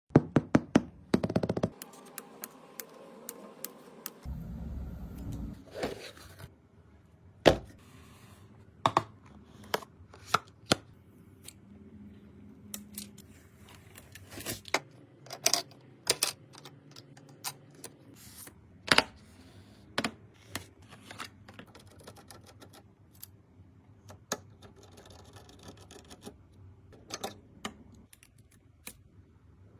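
Irregular clicks, taps and light scrapes of computer parts being handled and fitted together during a PC build: plastic and metal pieces knocking and snapping into place, with a quick run of clicks at the start and a brief low rumble a few seconds in.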